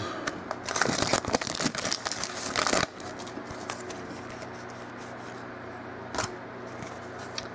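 A football card pack's foil wrapper being torn open and crinkled, a dense crackling for about the first three seconds. Then only the quiet handling of the cards, with a single tap about six seconds in.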